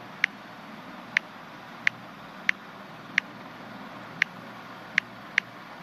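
Smartphone on-screen keyboard clicking as a password is typed: about nine short, sharp key-press clicks at an uneven pace, over steady background noise.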